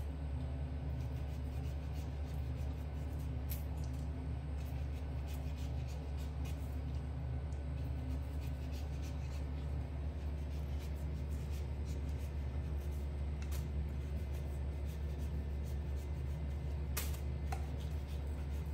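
Light, scattered scraping and clicking of a small knife peeling a green mango, over a steady low hum. A sharper knock comes near the end.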